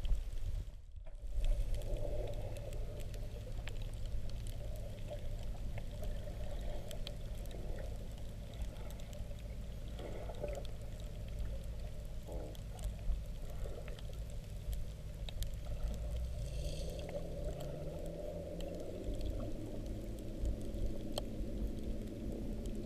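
Underwater ambience picked up by a submerged camera: a steady low, muffled rumble of water noise with scattered faint crackling clicks and a faint low hum. The sound drops out for a moment about a second in.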